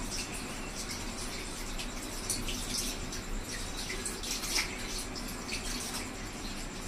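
Water running and splashing at a tap or sink: a steady wash of noise with scattered sharp drips and splashes.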